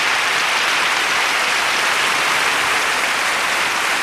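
Meat and vegetables sizzling on a wire grill over charcoal: a steady, dense crackling hiss.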